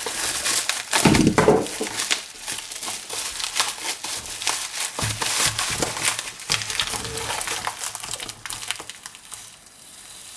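Packaging being handled and unwrapped by hand: a dense run of crinkling and crackling, with a louder crunch about a second in, thinning out near the end.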